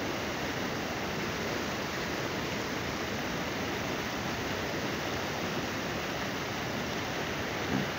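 Water spilling over a low concrete canal weir and churning in the channel below: a steady rushing noise.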